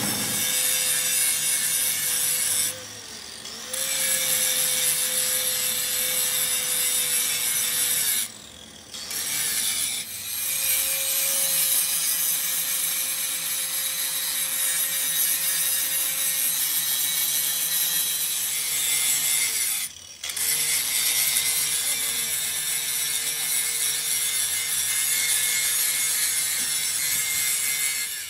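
Angle grinder grinding down weld build-up on a steel excavator bucket pin turning in a lathe: a steady motor whine over harsh grinding hiss. It breaks off briefly about three seconds in, for a second or so around nine seconds, and again at twenty seconds.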